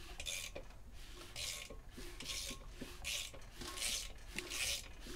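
Socket ratchet on the crank bolt turning over a GM Ecotec four-cylinder short block, its pawl rasping in short strokes about every 0.7 seconds, six or so in all. The crankshaft turns super smooth, with no binding in the bottom end.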